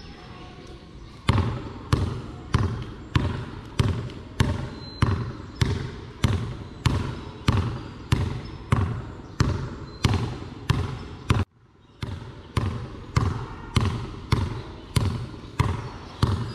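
Basketball dribbled on a concrete court: sharp, evenly spaced bounces at just under two a second, each with a short ringing tail. They begin about a second in and break off briefly about three-quarters of the way through before resuming.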